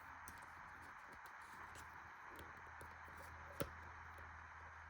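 Faint clicks and ticks of a clog's buckle strap being adjusted by hand, with one sharp click about three and a half seconds in, over a steady background hiss.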